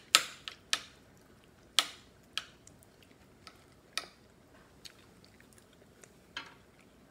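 Close-up eating sounds: chewing and mouth clicks, with a metal spoon clinking and scraping in a ceramic plate of rice. Several sharp clicks come close together in the first two seconds, then only a few scattered ones.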